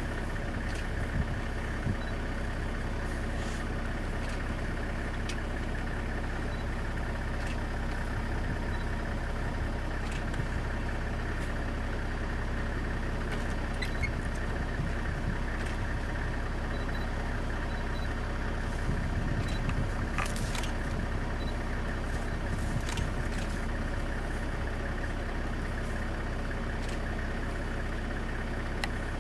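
A vehicle engine idling steadily, with a few faint clicks.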